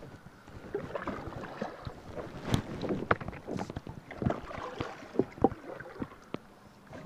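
Light, irregular knocks and rustles from a plastic kayak and its seated paddler shifting about on the water.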